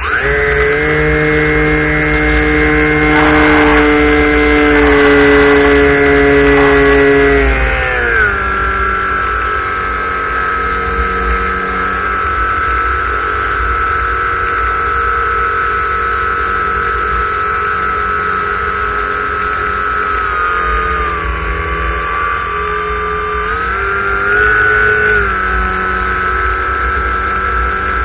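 Model airplane's motor and propeller running at a steady pitch, throttled back about eight seconds in, with small dips and rises later and another drop near the end. Wind buffets the microphone of the camera riding on the plane.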